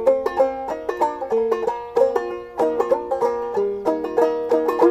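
Banjo played clawhammer style: a quick, even run of struck and plucked notes with ringing strings, in double C tuning lowered to double B-flat.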